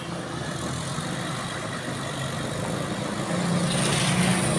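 Road traffic: a vehicle engine running with a low hum, growing louder near the end as a vehicle draws closer.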